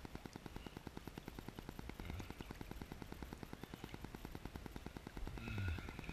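A rapid, even clicking or rattling, about ten clicks a second, heard through a camera at the water's surface.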